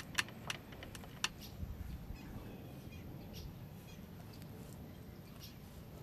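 A handful of sharp metallic clinks in the first second or so, from tools and metal parts knocking together as a scooter's belt transmission is put back together by hand. A few faint bird chirps follow.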